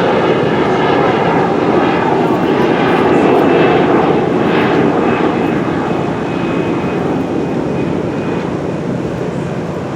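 An airplane passing low overhead: a loud roar that swells to a peak about three or four seconds in and then slowly fades.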